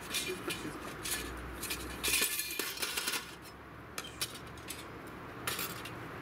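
Small metal camp cookware and stove parts being handled on a metal camp table: scattered light clinks and knocks, busiest around two to three seconds in.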